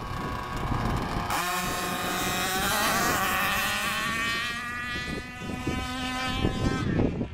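Two RC dragsters' small engines launching off the line about a second in and revving hard down the strip, their high whine climbing in pitch, then dropping away shortly before the end.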